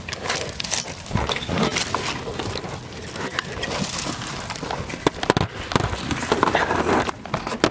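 Footsteps and scuffing, heard as a string of irregular clicks and knocks that grow sharper in the last few seconds.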